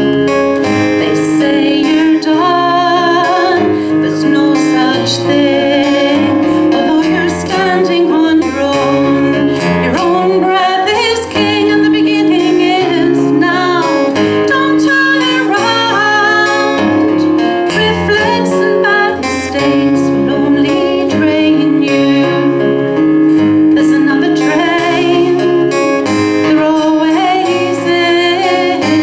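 A woman singing a folk song with acoustic guitar accompaniment.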